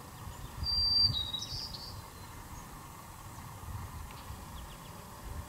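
A bird gives a short, high whistled call about a second in that steps down in pitch and then flicks back up, followed later by a few faint short chirps. Under it is a quiet outdoor background with a low rumble.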